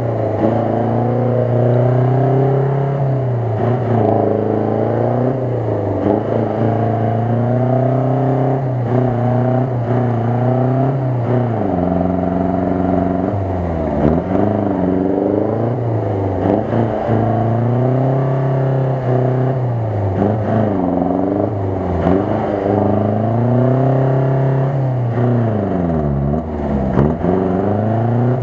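UAZ-469 engine revving hard up and down over and over, every couple of seconds, as the 4x4 spins its wheels in deep mud without getting free.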